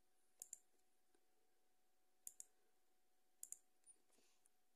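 Computer mouse button clicking: three quick pairs of clicks a second or so apart, then a single click near the end, faint over a low steady hum.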